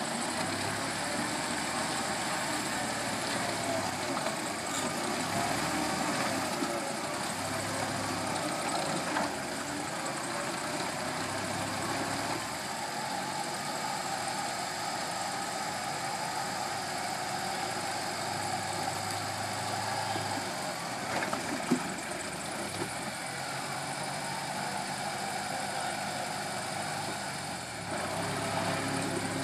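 Land Rover Series engine running steadily at low revs as the truck crawls slowly over mud and rocks, with one sharp knock a little past two-thirds of the way through.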